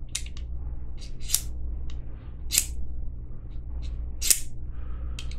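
Ferro rod of an Outdoor Element fire flute scraped with its carbide striker: four short, sharp scrapes a second or more apart, with lighter scratches between, wearing off the rod's coating.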